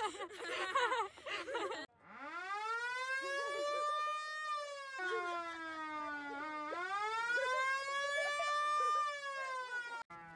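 Voices for about two seconds, then a police car siren winds up into a steady wail, dips and rises again, and cuts off suddenly near the end.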